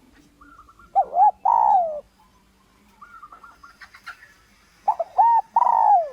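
Spotted dove cooing: two phrases, each of two short arched coos and then a longer falling coo, with fainter, higher stuttering notes leading into each phrase.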